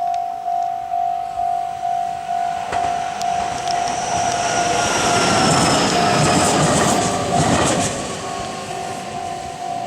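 Japanese level-crossing bell ringing about three times a second while a Meitetsu electric train passes through at speed. The rush of wheels on the rails swells to cover the bell, with a faint whine sliding down in pitch, then fades back under the bell.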